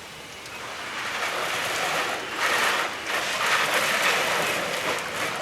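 Water spraying and splashing down, swelling in about half a second in and then running loud with surges.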